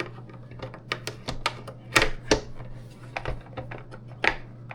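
Irregular hard plastic clicks and knocks of a George Foreman grill's grease drip tray being pushed and fiddled into place in the grill base, the loudest knocks about two seconds in and near the end, over a steady low hum.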